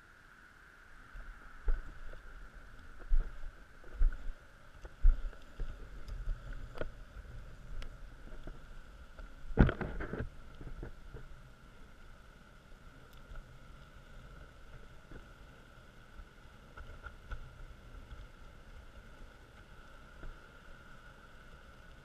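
Wind rumble on a handlebar-mounted camera's microphone while riding, with irregular knocks and thumps as the handlebars jolt over bumps, several in the first half and the loudest about ten seconds in. A faint steady high tone runs underneath.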